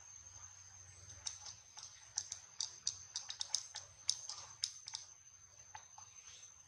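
Pig-tailed macaque grooming a sleeping infant: a quick, irregular run of small wet clicks and lip smacks as it picks through the fur with its mouth and fingers, from about a second in until about five seconds in. A steady high-pitched whine runs underneath.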